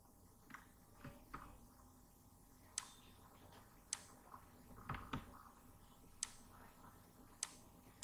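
Faint computer mouse clicks: four crisp clicks spread over the last five seconds, with a few softer knocks in between.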